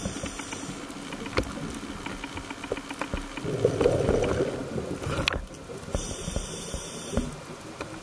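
Scuba diver breathing through a regulator underwater: a burst of exhaled bubbles about halfway through and a hissing inhale a couple of seconds later, with scattered sharp clicks.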